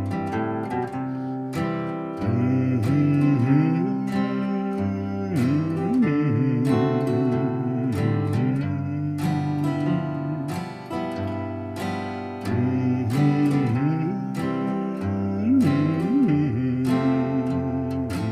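Background music: acoustic guitar strummed and plucked, with sliding notes.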